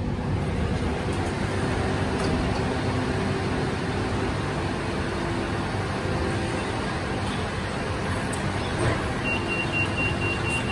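Inside a BTS Skytrain EMU-B3 car coming to a halt at a station: a steady hum of the train's running gear and air conditioning. Near the end, a quick run of high beeps at one pitch for about two seconds, the train's door warning signal.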